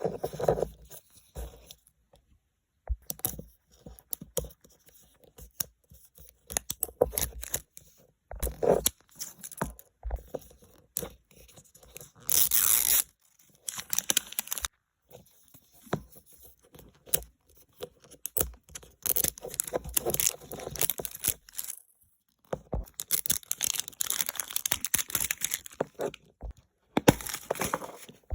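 Toy packaging being torn open and crinkled by hand, in irregular bursts of tearing and rustling with short pauses between them.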